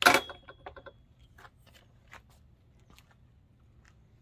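A sharp metal clack with a brief ring from a bike repair stand being handled, followed by a quick run of lighter clicks and taps over the next second, then a few scattered ticks.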